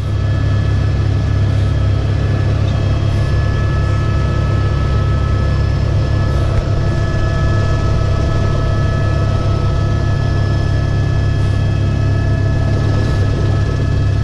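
Helicopter in flight, heard from inside the cockpit: a loud, steady low drone of rotor and engine with a few constant higher whining tones over it. It fades up quickly at the start.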